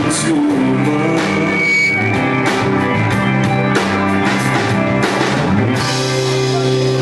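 Live rock band playing an instrumental passage: drum kit with regular cymbal hits over electric and acoustic guitars and bass. Near the end a long cymbal crash rings out over a held chord.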